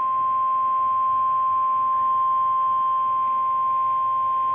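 NOAA Weather Radio's 1050 Hz warning alarm tone: one unbroken, steady pure tone, the signal that a warning message is about to follow.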